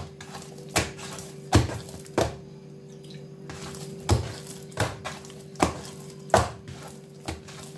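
Soft, wet sfenj yeast dough being beaten by hand in a wooden bowl: about nine wet smacks less than a second apart, with a pause of nearly two seconds partway through. This beating is the stage that makes the fritters come out light.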